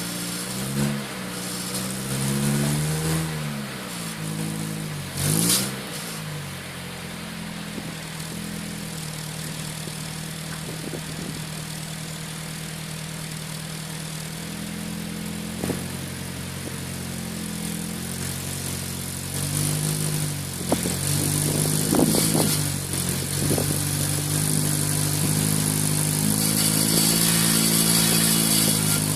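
Car engine running through an aftermarket Pumaspeed muffler, revved briefly up and down a few times in the first six seconds, then running steadily, with the revs and loudness rising again in the last third. The owner is chasing a strange noise coming from the muffler.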